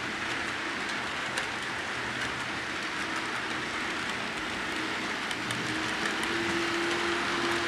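HO scale model steam locomotive and its freight cars rolling along the track: a steady hiss of metal wheels on rail, a few light clicks, and a thin motor whine that grows stronger near the end as the locomotive comes close.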